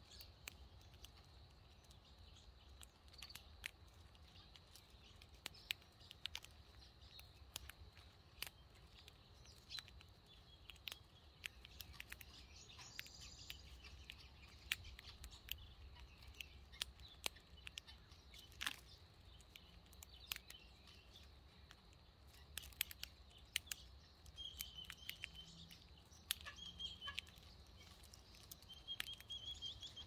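Weaver birds pecking at crushed maize on a stone ledge: many sharp, irregular clicks of beaks striking the grain, with a few faint high chirps in the second half.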